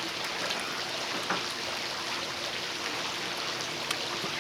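Steady sizzling hiss from the Weber Smokey Mountain smoker's cooking meat, with scattered small crackles.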